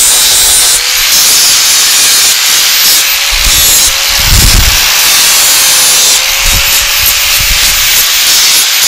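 Electric grinder working steel bracket stock: a steady, loud abrasive hiss over a faint motor whine that wavers slightly in pitch, with a few low thuds as the work is pressed and moved.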